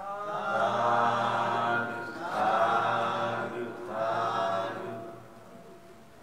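Buddhist chanting: voices intoning three long, drawn-out phrases on held pitches. The chanting fades out about five seconds in.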